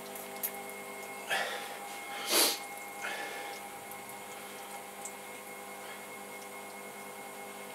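Electric pottery wheel running with a steady hum while wet hands squeeze and cone up a spinning hump of clay, giving three short wet swishes, the loudest about two and a half seconds in.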